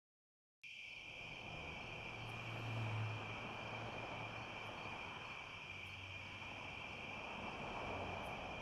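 Night-time outdoor ambience after a brief moment of silence: a steady high insect trill, like crickets, over a low hum of distant traffic that swells about three seconds in.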